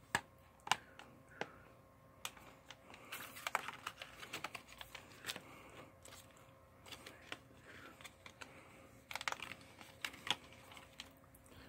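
A metal Blu-ray steelbook case and its cardboard slipcover being handled. The case is closed and fitted into the sleeve, giving scattered light clicks and taps, with a short scraping rustle about three seconds in.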